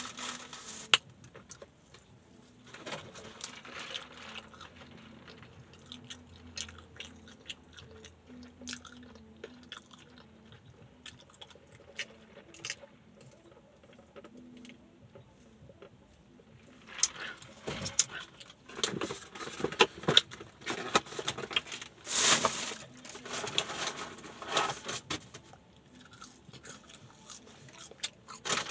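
Close-up eating sounds: chewing and crunching with small wet clicks, growing louder and busier in the second half.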